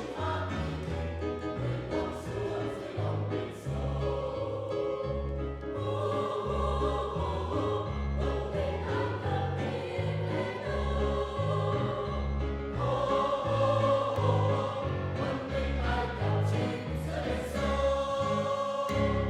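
A choir singing a hymn with keyboard accompaniment and a steady pulsing bass.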